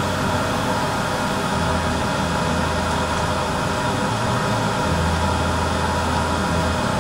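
Steady fan-like hiss with a low hum underneath that drops out briefly twice; no click or snap from the light pulses stands out.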